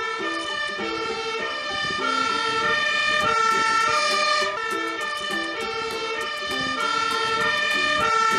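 Fire engine siren sounding, its tone switching back and forth between a higher and a lower note.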